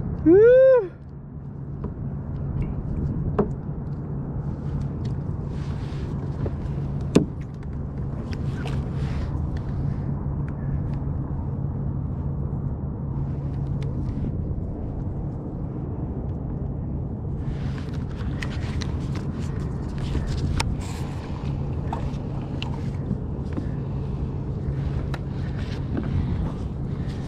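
A short, loud cry rising and falling in pitch in the first second, then a steady low hum with occasional sharp clicks and light rustling as fishing gear and the landing net are handled on a kayak.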